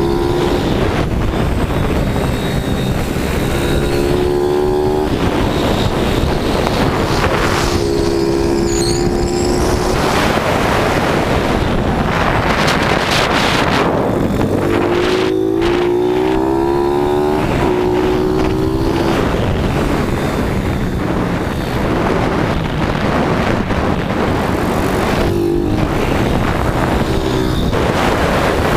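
YCF SP2 160 pit bike's single-cylinder engine revving hard and easing off again and again as the rider accelerates down the straights and shuts off for corners, with a constant rush of wind over the microphone.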